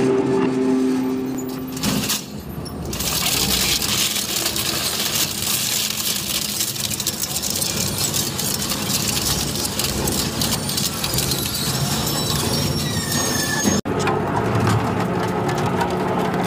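Industrial shredders at work, in separate clips. A shredder's motor hums steadily while a sledgehammer sits on its toothed roller. Then a twin-shaft shredder grinds through a long metal bar for about ten seconds. After a sudden break near the end, a shredder starts crunching a bowl.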